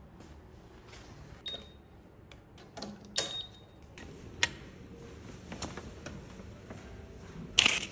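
Hotel self-check-in kiosk: two short high beeps about one and a half and three seconds in, among clicks and handling knocks as a key card is dispensed from the card slot. A louder sudden knock or rustle comes near the end.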